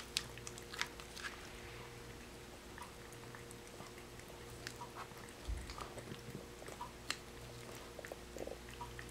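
A British Shorthair cat eating wet food from a small cup: faint, irregular wet clicks of licking and chewing.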